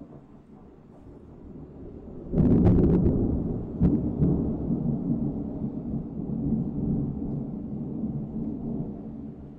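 Thunder: a low rumble builds, breaks into a sudden loud crack a little over two seconds in with a few more sharp snaps over the next two seconds, then rolls on as a long, deep rumble that slowly fades.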